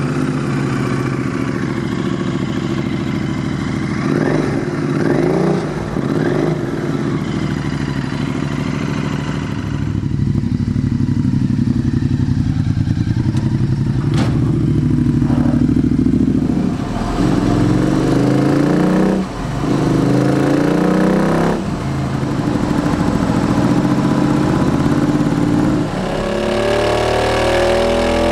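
Royal Enfield 650 parallel-twin engine running through a Tec Stinger 2-into-1 exhaust, freshly started and idling, with several throttle blips that rise and fall in pitch and a rev climbing near the end.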